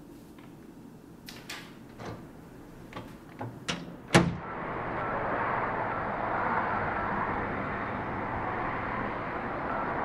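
A few light clicks and knocks, then a door banging shut about four seconds in, the loudest sound here. After it comes a steady outdoor background hum.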